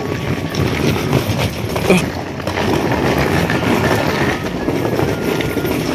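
Footsteps and a steady rumbling handling and wind noise on a phone microphone as a person walks along a concrete path.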